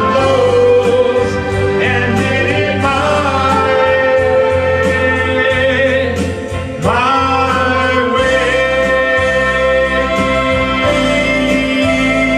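Orchestral song with a singer holding long, wavering notes over a full band, and a new swell about seven seconds in.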